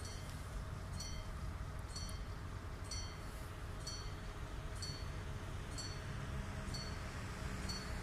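Level-crossing warning bell dinging about once a second, each ding short and bell-like, over a low rumble from the approaching train.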